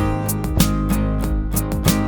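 Background music led by a strummed guitar, with a steady rhythm of plucked notes.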